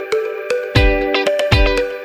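Background music with plucked notes over a steady beat.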